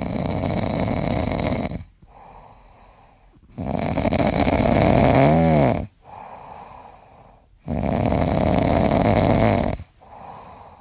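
Grey cat snoring in its sleep: three loud snoring breaths of about two seconds each, with quieter breaths between them. The middle snore carries a brief wavering tone near its end.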